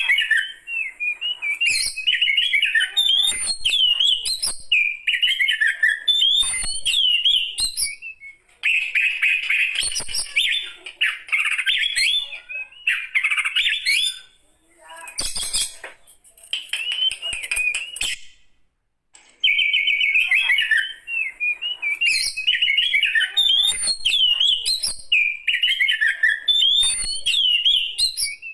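Oriental magpie-robin (kacer), a mature bird, singing: loud, rapidly varied phrases of whistles and chirps, broken by a few short pauses.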